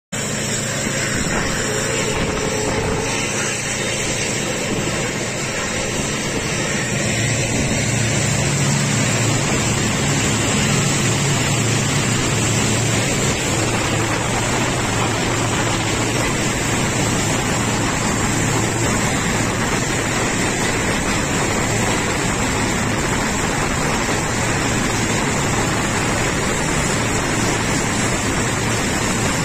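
Passenger train running on the track, heard from an open door or window: a steady, loud running noise with a low hum. It grows louder about seven seconds in and stays loud as the train runs through a tunnel.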